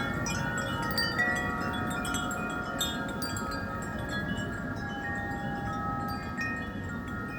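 A cluster of wind chimes ringing nonstop in strong gusty wind, their many overlapping tones struck again and again, over a low rumble of wind.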